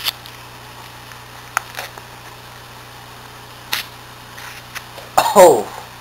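A few short clicks and a faint rustle from a knife and a medication packet being handled and cut open, over a steady low hum. Near the end comes a startled, loud 'Oh!' that falls in pitch.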